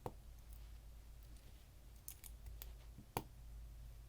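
Small plastic Lego bricks being handled and pressed onto studs: a few light clicks, the sharpest and loudest a little after three seconds in, over a steady low hum.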